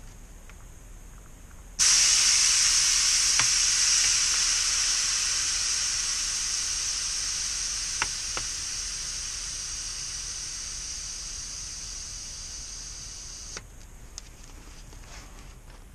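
Aerosol can spraying in one long continuous hiss that starts suddenly about two seconds in, slowly fades, and cuts off abruptly near the end, with a couple of faint clicks during it.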